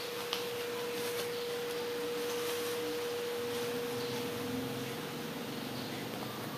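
A steady pure tone held at one pitch, like a beep, fading out near the end, over faint room noise.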